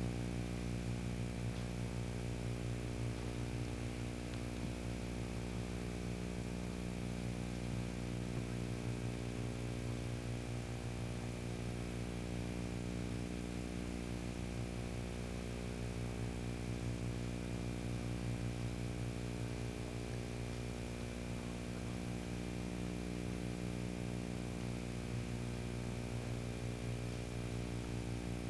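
Steady electrical hum with a buzz of evenly spaced overtones, unchanging throughout.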